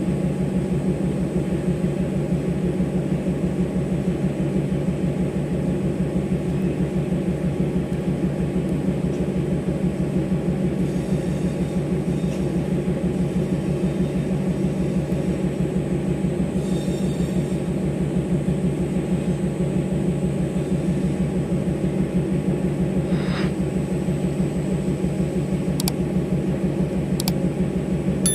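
Diesel locomotive engine running steadily, a loud low rumble with a fast, even pulse.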